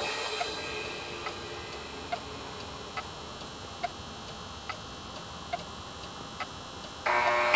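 Clock ticking, a steady tick-tock with alternating tick and tock a little under a second apart. Near the end a louder, pitched sound cuts in.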